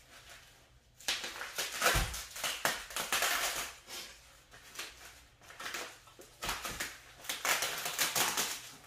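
Packaging being handled and opened: rustling and crinkling in two spells with a few sharp clicks and knocks.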